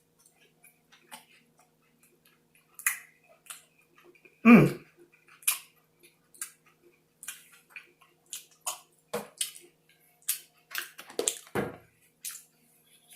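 Close-miked chewing of a burger: scattered wet mouth clicks and smacks, with one louder, lower mouth sound about four and a half seconds in.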